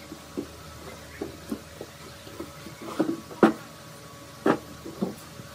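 Split wooden log pieces knocking on a solid wood tabletop as they are set down, turned upright and shifted. The knocks are irregular, soft at first and louder in the second half.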